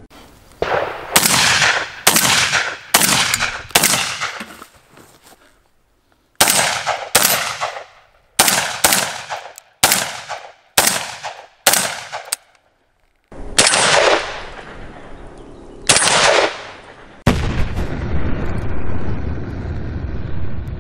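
Webley & Scott Web-Tac semi-automatic shotgun firing in quick strings of shots, one to two a second, with a short pause between strings, then two more single shots. About three and a half seconds before the end, music starts.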